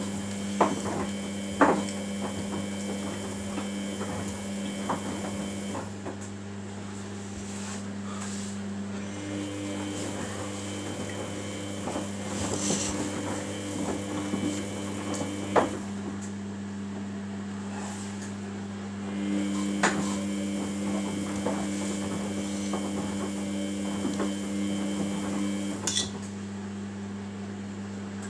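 Samsung WF80F5E0W4W front-loading washing machine tumbling a wet wash. The drum motor whines in spells of about six seconds with pauses between them, over a steady low hum. A few sharp knocks come from the load in the drum.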